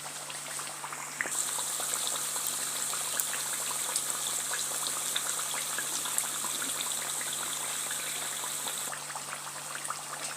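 Battered potato slices deep-frying in hot oil: a steady sizzle of dense, fine crackling, louder from about a second in until near the end.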